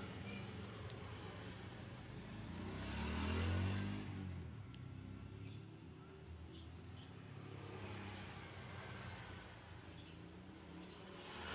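A motor vehicle passing by, its engine hum swelling to a peak about three and a half seconds in and then fading away. Later, a run of faint short bird chirps.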